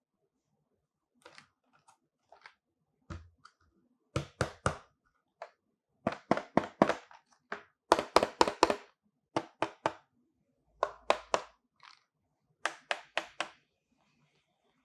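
Fingers handling and tapping a cardboard product box, heard as bursts of three to seven quick, sharp taps and knocks, loudest and densest in the middle.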